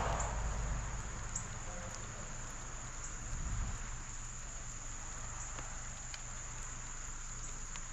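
Insects, crickets or katydids, droning steadily at one high pitch. A low rumble fades away in the first second.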